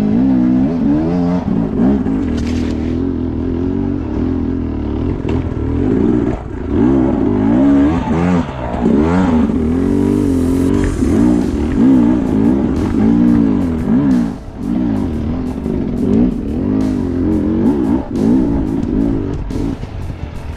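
Off-road vehicle engine revving up and down over and over, its pitch rising and falling about once a second.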